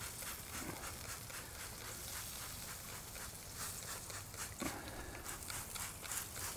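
A hand trigger spray bottle spritzing smoked pork ribs hanging in a pit barrel cooker, in many short, faint squirts.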